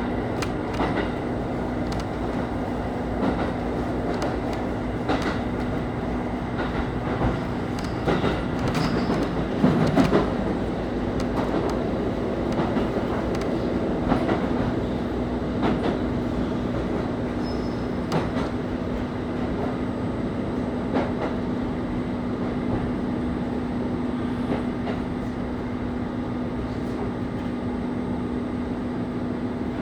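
JR KiHa 25 diesel railcar running, heard inside the car: a steady engine and drive hum with one constant tone, over rail noise with scattered clicks of wheels over rail joints. A louder cluster of knocks comes about ten seconds in.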